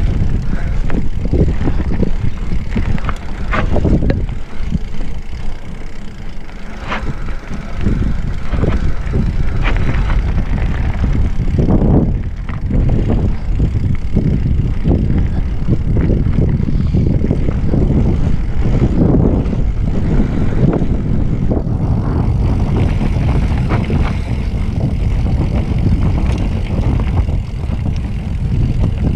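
Wind buffeting the camera microphone over the tyre noise and rattle of a Specialized Fuse hardtail mountain bike riding down a dirt singletrack, with frequent short knocks and clatters as it rolls over bumps.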